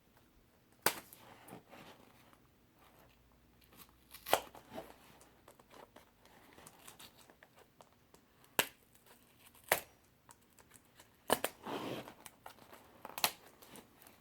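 Cardboard and packaging being handled and torn open during a tool unboxing, with several sharp clicks and a stretch of rustling and crinkling near the end.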